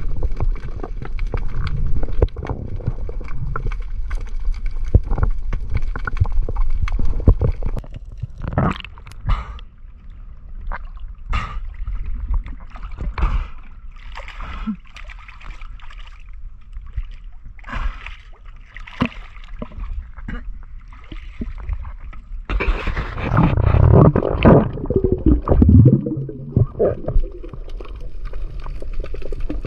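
Muffled water sloshing and gurgling around a camera held in the water, with many scattered clicks and knocks. A louder stretch of churning and gurgling comes about three-quarters of the way through.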